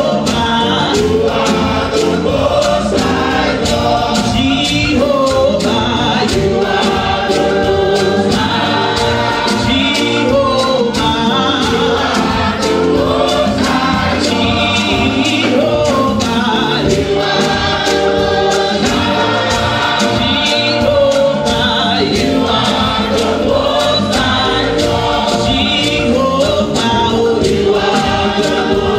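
Gospel choir singing through microphones, backed by a live church band with a steady drum beat.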